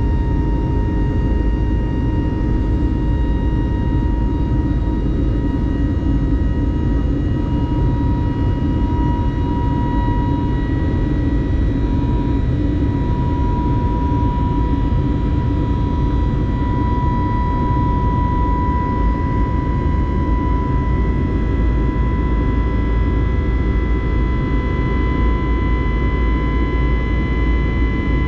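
Jet airliner's turbofan engines heard from inside the cabin during climb-out, a steady low rumble with a steady high whine over it.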